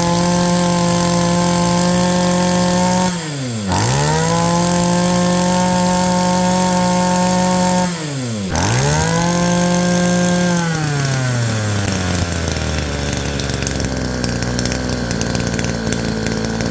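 Stihl FS 2300 brush cutter's small 23 cc petrol engine running at high revs. The revs dip sharply and pick straight back up twice, about three and eight seconds in. From about ten seconds in the revs fall away and the engine settles to a rougher idle.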